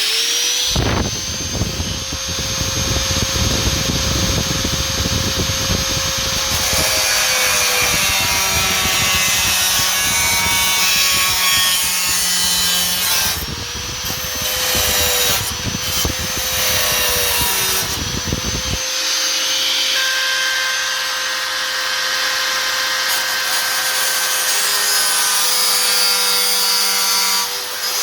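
A power tool cutting sheet steel, running continuously with a steady whine and a rasp. The rasp drops away about two-thirds of the way through while the tool keeps running.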